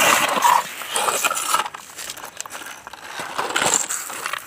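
Plastic toy trucks being handled on concrete and small stones: scattered clicks, knocks and scrapes.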